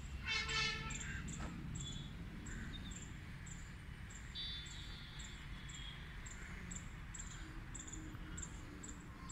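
Insect chirping: a faint, high, regular chirp repeating about two and a half times a second over low outdoor background noise.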